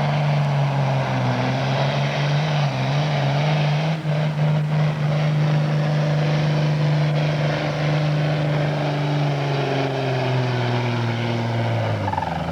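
Pro farm class pulling tractor running at full throttle down the track, dragging the sled, its engine holding a steady pitch. Over the last few seconds the engine pitch falls away as the rev limiter cuts in and the engine comes down.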